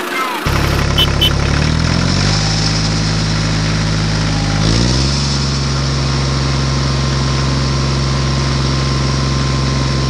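Tractor engine running steadily at a low idle, its pitch stepping up briefly about two seconds in and again about five seconds in.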